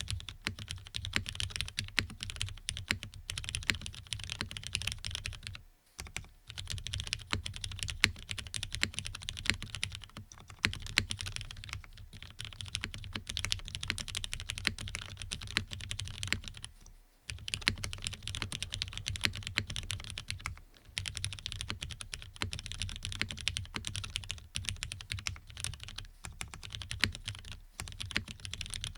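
Fast, continuous typing on a Geonworks Frog custom mechanical keyboard with lubed Cherry MX Black linear switches on an FR4 half plate: a dense run of keystroke clacks, broken by a few brief pauses.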